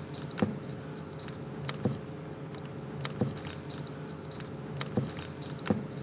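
Handling of a crimping tool and loose wires on a wooden workbench: about five light clicks and taps scattered over a steady low room hum.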